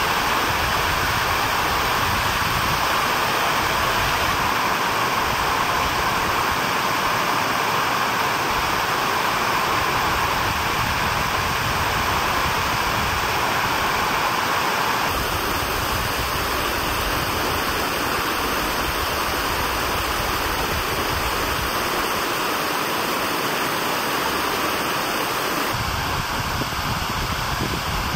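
Steady, loud rush of falling water. Its tone shifts slightly about halfway through and again near the end.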